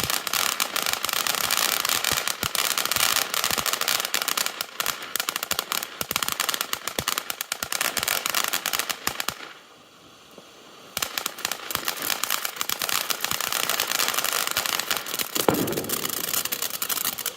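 Fireworks going off in a dense, rapid crackle of pops. It breaks off for about a second and a half around ten seconds in, then picks up again.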